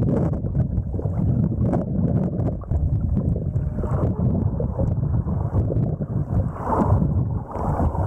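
Muffled, low rumbling water noise picked up by a camera underwater as it moves through the sea, with a few faint clicks.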